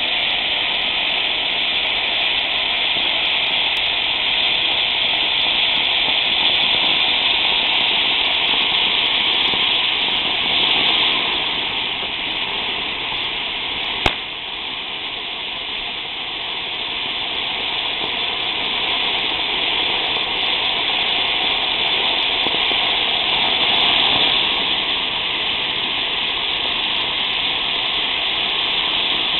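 Blue Ice fountain firework burning with a steady rushing hiss of sparks. A single sharp pop comes about halfway through.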